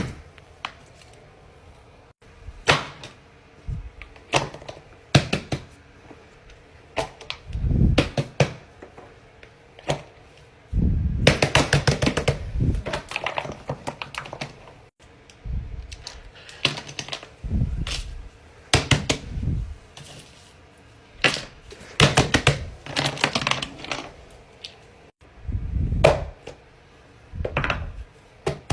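Irregular clicks, taps and soft thuds of small objects being handled at close range, coming in clusters every second or two.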